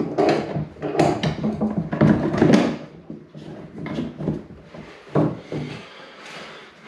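Irregular knocks, clicks and rattles of hand tools and metal fittings being worked while a wall-mount tub faucet is fitted. The clatter is dense for the first three seconds, then lighter, with a sharp knock a little after five seconds.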